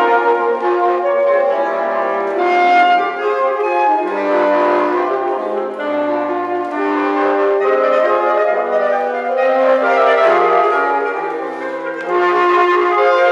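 Saxophone quartet (soprano, baritone and two other saxophones) playing in close harmony: several sustained voices moving together, with the baritone carrying a low bass line under the chords.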